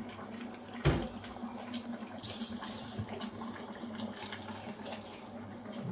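Water sounds over a steady low hum, with one sharp knock about a second in and a brief hiss a little after two seconds.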